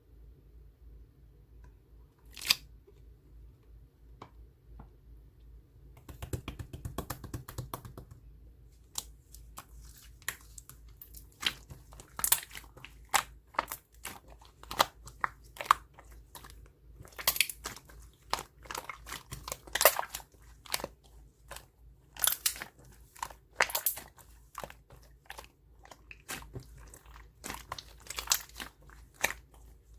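Crunchy chewing: a few isolated clicks, a burst of rustling, then many irregular crisp crunches coming thick and fast from about ten seconds in.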